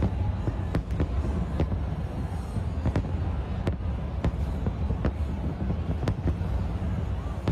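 New Year's fireworks bursting, separate sharp bangs at irregular intervals of about one a second, over a steady low rumble.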